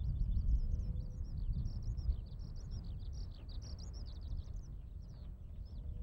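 Eurasian skylark singing: an unbroken stream of rapid, high chirps and trills, over a steady low rumble.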